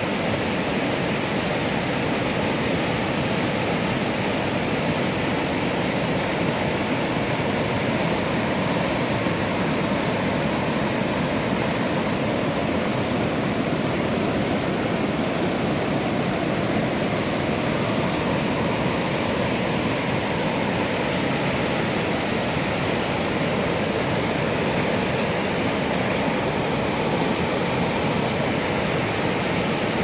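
River in high flow rushing over rocky rapids: a steady rush of whitewater that does not let up.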